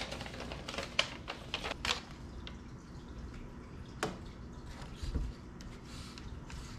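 Paper quick-start guide being unfolded and handled, rustling and crinkling, most in the first two seconds. A sharp click about four seconds in and a soft thump a second later, over a faint steady low hum.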